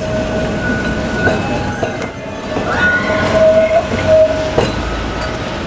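Heritage tram running on the track, its wheels squealing in wavering high tones over a low rumble; the squeal is strongest around the middle.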